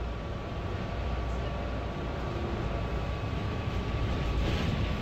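Steady interior noise of a city bus on the move: a low engine and road rumble, with a faint high whine held throughout and the road noise growing a little louder near the end.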